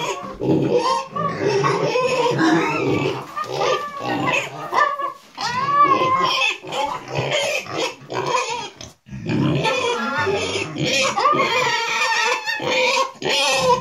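Pet pig calling almost without pause, its calls rising and falling in pitch, with a short break about nine seconds in.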